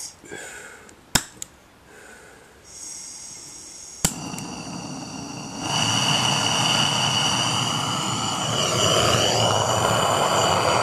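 Handheld gas torch: a couple of sharp clicks, then gas hisses on, a sharp click as it lights about four seconds in, and the flame burns steadily, louder from about six seconds in. It is heating the rust-stuck valve lifters of a Hercules ZXB engine to free them.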